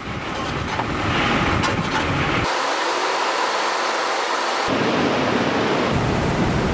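Steady noise of coffee wet processing in three abrupt cuts: a dump truck's engine running as it tips a load of coffee cherries into a concrete receiving tank; a thinner hiss with no rumble beneath it, starting about two and a half seconds in; then, from about four and a half seconds, water running through the wet mill's pulping and washing machinery.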